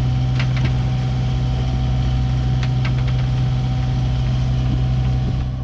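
Cabo Rico 38's inboard diesel engine running steadily as the boat motors into waves, a steady low drone with a few faint clicks over it.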